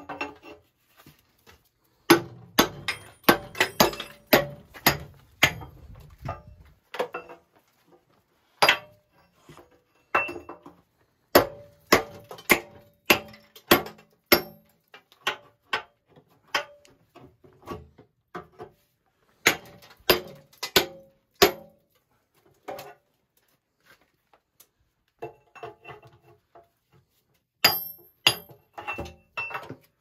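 Hammer blows and tools clanking on the cast iron sections of an old sectional steam boiler as it is knocked apart. The blows are sharp and ringing and come in irregular flurries with pauses between them.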